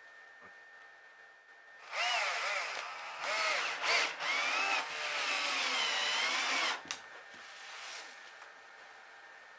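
Handheld power tool, drill-like, running for about five seconds, its pitch dipping and rising repeatedly as it bogs under load and recovers, then cutting off suddenly.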